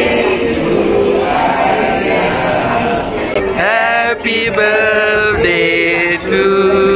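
A group of people singing a birthday song together, with several long held notes.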